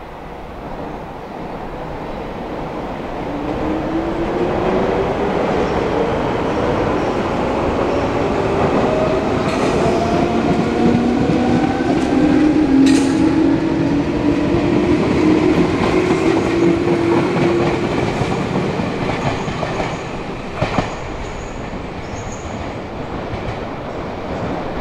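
Meitetsu electric train running on the tracks, its motor whine rising slowly in pitch as it picks up speed, over a steady rumble of the wheels with a few clicks.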